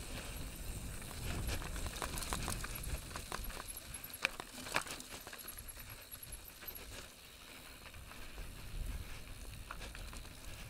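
Mountain bike descending a dirt and rock trail: tyres running over loose dirt and stones, the bike rattling and knocking over bumps, with two sharp knocks about four and five seconds in. Wind rumbles on the helmet camera's microphone throughout.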